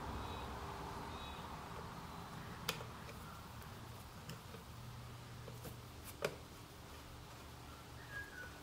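Faint clicks and taps of a screwdriver working at a motorcycle's wiring, with two sharper clicks, over a low steady hum.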